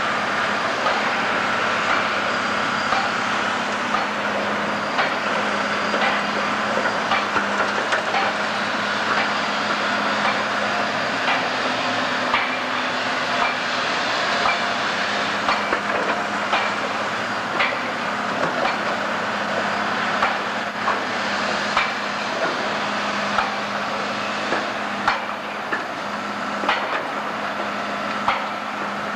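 Construction site noise: heavy machinery running steadily, with scattered sharp knocks and bangs of hammering on the steelwork.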